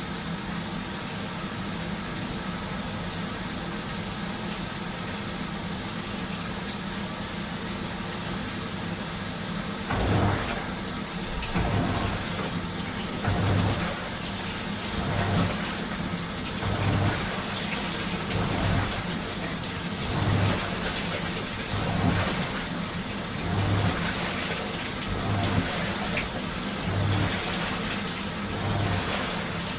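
Washing machine running: a steady motor hum, then from about ten seconds in, water sloshing in regular surges roughly every one and a half to two seconds as the drum turns.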